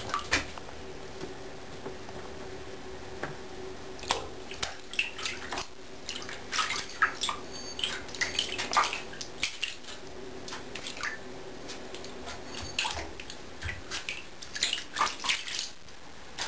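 Savannah cat batting at a goldfish in shallow bathtub water with its paw: bunches of quick little splashes and slaps on the water, a busy run in the middle and another near the end.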